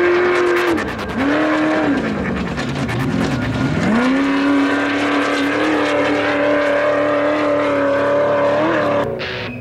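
Off-road race buggy's engine at high revs. It backs off about a second in with a short blip, drops low around three seconds, then climbs back and holds a steady high note until it cuts off near the end. Tyres throwing dirt and gravel can be heard under it.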